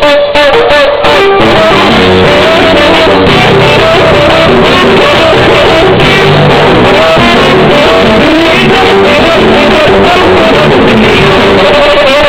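Loud live band music with a singer, played over a trio elétrico's sound system, so loud that the recording is pinned near full scale. The sound drops out briefly a few times in the first second or so.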